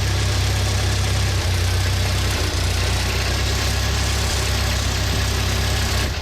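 Clark forklift's carbureted engine idling steadily. It won't idle right, a sign of an intake vacuum leak, which the owner later traces to a gap between the intake manifold and the cylinder head.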